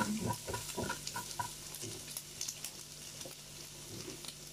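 Food frying and sizzling on a Korean-style barbecue grill, with a few light clicks and taps of utensils in the first second or so and a faint steady hum underneath.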